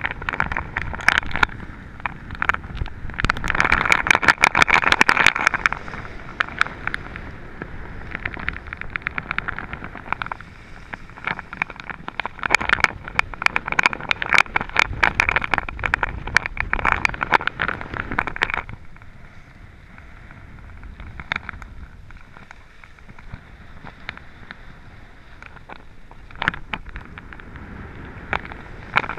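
Skis sliding and scraping over groomed snow, with many sharp clicks and clatters and wind rumbling on the microphone. The scraping comes in long stretches and eases off about two-thirds in.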